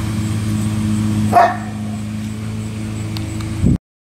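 A steady low mechanical hum with a single short dog bark about a second and a half in. The sound cuts off abruptly near the end.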